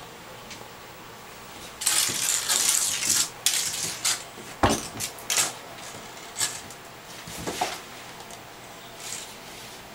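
A kitten's plastic toy spring clattering and skittering on an empty bathtub, with the kitten's paws scrabbling on the tub. A dense rattle about two seconds in, then scattered knocks and rattles, one sharp deep knock near the middle.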